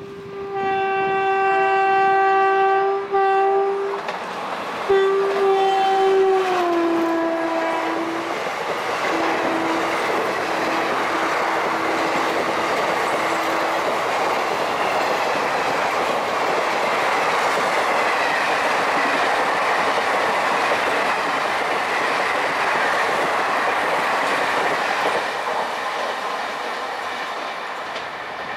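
WAP-4E electric locomotive's horn sounding in two long blasts, the second dropping in pitch as the locomotive races past. Then the loud, steady rush and clatter of the 24-coach express passing at over 100 km/h, fading near the end.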